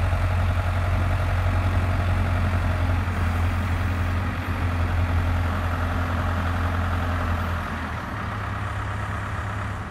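Pettibone T884 telehandler's engine running steadily while its boom is lowered. The deep engine hum drops away about three-quarters of the way through, and the sound gets a little quieter.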